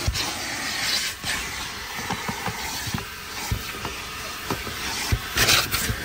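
Steady hiss of a coin-operated car wash's high-pressure spray wand, with scattered low knocks and a louder surge of spray about five seconds in.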